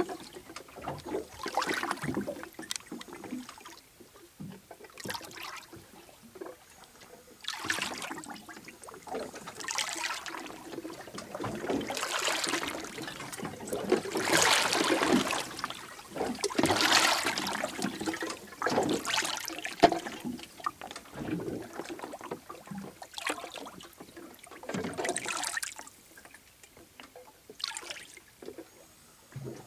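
Seawater sloshing and gurgling in irregular surges as a handheld camera is dipped in and out of the surface.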